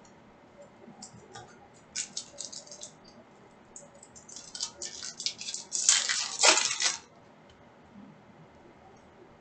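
Foil wrapper of a retail basketball trading-card pack crinkling as it is torn open and handled, in crackly bursts that build to the loudest stretch of crinkling about six seconds in, then stop.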